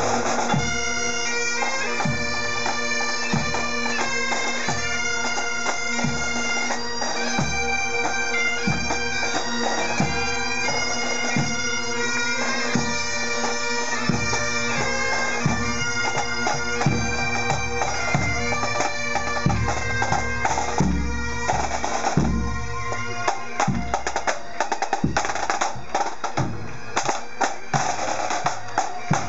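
Bagpipes playing a tune over their steady drone, with drums beating a regular march rhythm. In the last third the drumming gets busier.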